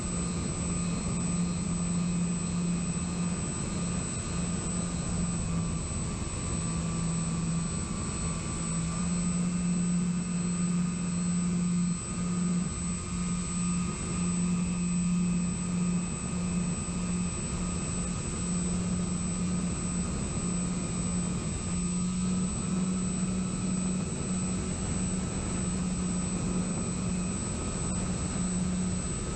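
Electric model airplane motor and propeller running at a steady cruise, picked up by the onboard camera. There is a constant hum, a thin high whine and a rush of wind, and the pitch shifts slightly a couple of times.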